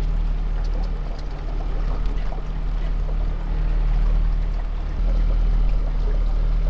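Small boat's outboard motor running steadily under way, with water rushing along the hull; the engine gets a little louder about five seconds in.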